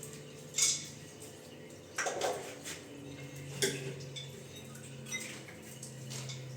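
Metal clinks and knocks as a wall mixer and its fittings are handled and fitted, with three sharper knocks spread through.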